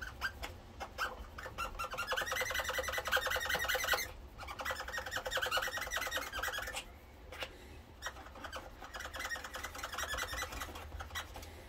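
A Dremel rotary tool with a nylon-bristle brush running at about 30,000 RPM against the rubber surface of a small VCR roller, spinning it fast. It makes a rapid buzzing chatter in three stretches, breaking off briefly about four and seven seconds in. The worn rubber is being roughed up with IPA to get back some grip, a temporary fix for a part that needs replacing.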